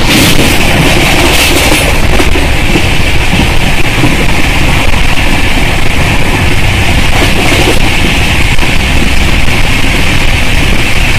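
Express passenger train running at speed, heard at an open coach doorway: a loud, steady rush of wind and wheel-on-rail noise with a high hiss over it, briefly louder in the first couple of seconds.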